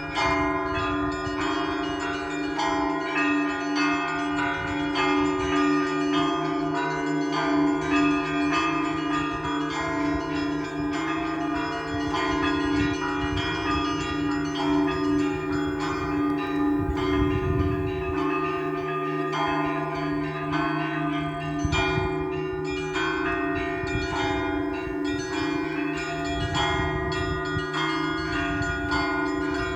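Russian Orthodox church bells rung by a single bell-ringer: a lower bell struck steadily and evenly while smaller bells are struck in quick patterns above it, all ringing together without a break.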